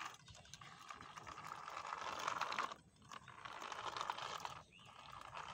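Faint whirr of a toy remote-control JCB backhoe's small electric drive motor and plastic gears as it drives. The whirr drops out briefly twice, about three seconds in and near the end.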